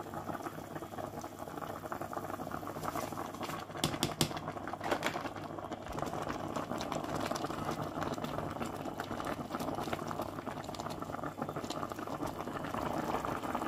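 A pot of pumpkin and fish soup bubbling at a steady rolling boil, with a few sharp clicks about four and five seconds in.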